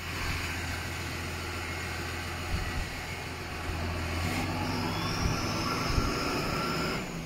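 John Deere tractor engine running steadily as the tractor drives over a silage pit, rolling and packing the cut grass. Partway through the engine note shifts and a thin high whine rises slightly until near the end.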